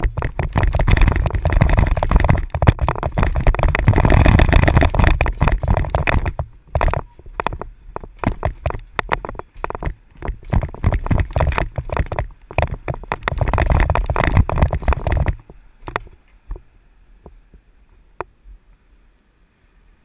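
Mountain bike clattering and rattling as it rides down a flight of trail steps, each step a jolt through the bike and its mounted camera. The loud knocking runs for about fifteen seconds, easing briefly twice, then dies away to a few scattered clicks.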